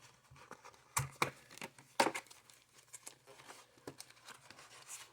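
A cardboard baseball-card wax box being handled and opened: crinkling and tearing of cardboard and wrapping, with a few sharp cracks about one and two seconds in.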